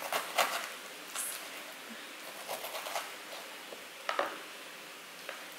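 Kitchen knife cutting the rind and spikes off a pineapple on a chopping board: a series of short cuts and taps on the board, the loudest about four seconds in.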